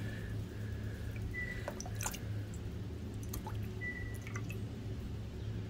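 Plastic pouch being handled: a few small sharp clicks and crinkles from the packaging, over a steady low hum. Brief thin high notes sound twice.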